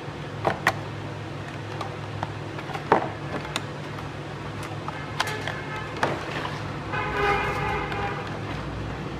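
Clear PVC blister-pack clamshells being handled and pressed together: a series of sharp plastic clicks and crackles over a steady low hum. About seven seconds in, a short pitched sound lasting about a second.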